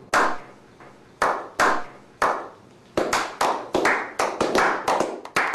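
Slow clap: sharp single hand claps about a second apart, quickening about three seconds in to a brisk run of about four claps a second.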